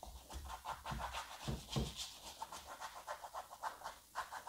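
Paintbrush scrubbing oil paint across a canvas in quick back-and-forth strokes, several a second, with two soft knocks about a second and a half in.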